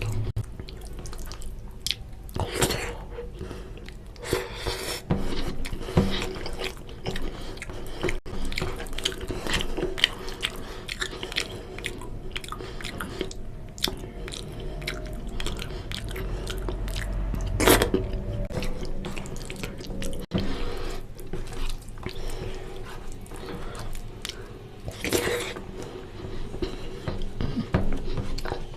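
Close-up eating sounds of oily mutton curry and rice: irregular wet clicks, smacks and chewing, with a few louder, longer smacks.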